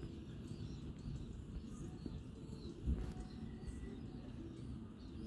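Small birds chirping faintly over a steady low rumble of outdoor ambience, with one short knock a little before three seconds in.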